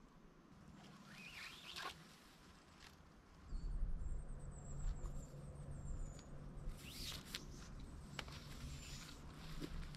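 Scattered rustling, scratching and light clicks of gear being handled at close range, with a low rumble coming in about three and a half seconds in.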